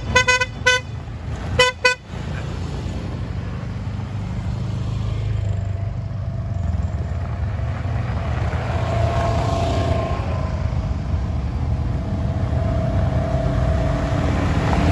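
Short horn beeps, several in a row in the first two seconds, then the steady low running of side-by-side UTV and ATV engines rolling slowly past, with a thin whine that rises and fades from about five seconds in.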